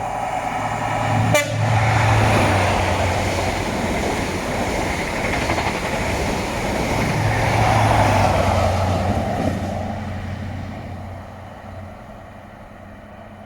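CrossCountry HST (InterCity 125) passing at speed. Its horn ends about a second in, just as the leading diesel power car goes by. Then comes the steady rush of the coaches over the rails with a low diesel hum, rising again near the end as the rear power car passes, before fading away.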